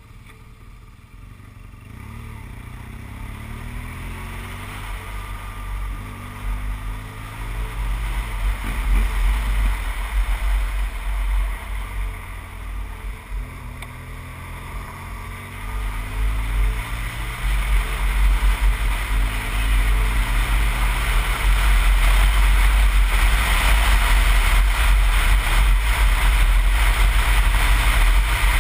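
BMW R1200GS boxer-twin engine pulling up through the gears, its pitch rising several times with drops between them. Wind rumble on the helmet-camera microphone grows steadily louder as the speed picks up.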